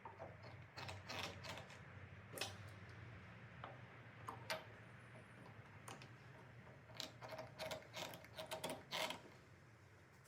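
Irregular light clicks and knocks, as of small metal and wooden parts being handled and fitted, with a faint low hum underneath. A quick run of clicks comes near the end.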